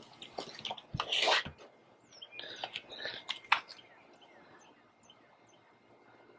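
Paper towel soaked in WD-40 rubbing over a plastic headlight lens in several short wiping strokes, cleaning off the fogging. Faint bird chirps a few times near the end.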